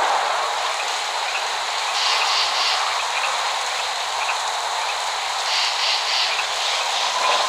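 Steady rain falling: an even hiss of rainfall without thunder.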